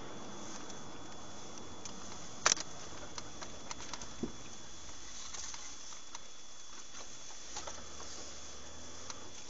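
Steady hiss of a dashcam microphone inside a moving vehicle, with a faint steady high whine. A sharp click comes about two and a half seconds in, and fainter clicks and ticks are scattered after it.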